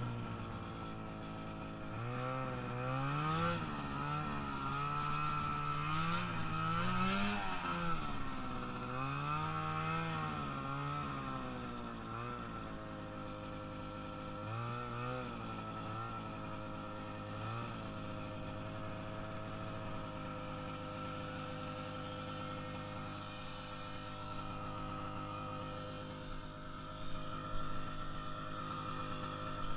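A freshly rebuilt engine on its first ride, revving up and down several times over the first dozen seconds, blipping twice, then running at a steady lower speed. A steady high whine runs under it throughout.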